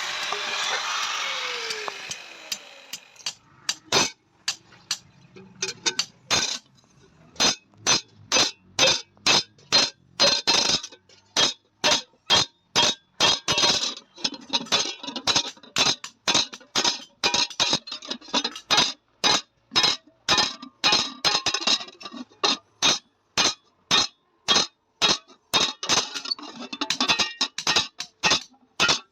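Hand hammer striking the iron plate of a tawa, about two ringing metallic blows a second with a few short pauses. It opens with a power tool winding down and fading out over the first two seconds.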